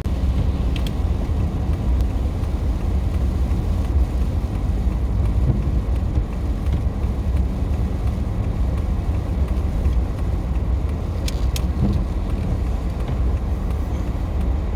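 Truck driving on the road towing a stock trailer loaded with cattle: a steady low rumble of engine and road noise, with a couple of faint clicks about eleven seconds in.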